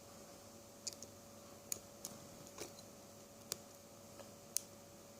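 Lock pick scraping and clicking against the pins inside a small pin-tumbler padlock, tensioned by finger pressure: a handful of faint, sharp, irregular clicks over a faint steady hum.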